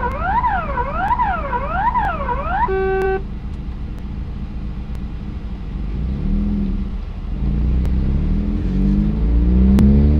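Electronic siren-like alarm of a driving-test car wailing up and down, the 'dangerous situation' signal that tells the driver to stop, cutting off with a short beep about three seconds in. Later the car's engine revs up as it pulls away, its pitch climbing in steps through the gears.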